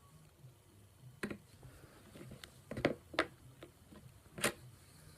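A few separate light clicks and knocks of a skateboard wheel and a new metal bearing being handled and pressed into place, the sharpest just under three seconds in.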